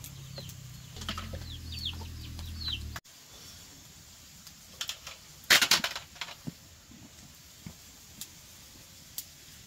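Chickens: a few faint short chirps in the first three seconds, then a loud, brief flurry about five and a half seconds in.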